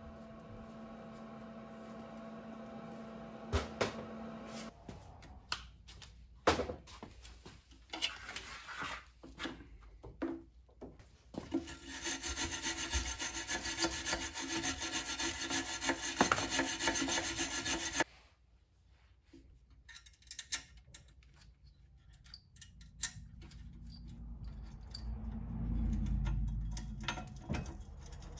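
Hand work on a scooter's frame and wiring. A low steady hum with a few knocks is followed by scattered clicks. About twelve seconds in, a loud steady rubbing or scratching noise runs for about six seconds and cuts off abruptly. Low fumbling noises of hands and parts rise near the end.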